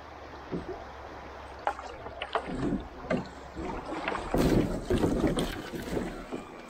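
Canoe running a shallow riffle: a steady rush of moving water with irregular splashes and slaps of choppy water against the hull. It grows louder about halfway through.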